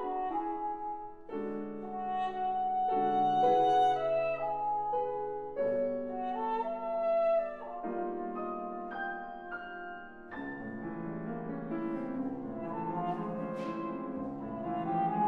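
Trumpet playing a classical melody in sustained and moving notes, accompanied by grand piano. About ten seconds in, the piano part grows busier beneath the trumpet.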